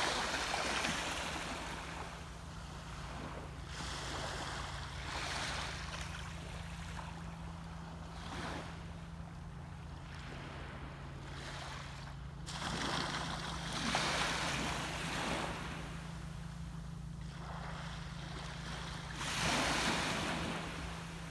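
Small waves washing onto a beach, swelling and fading every few seconds, over a steady low hum.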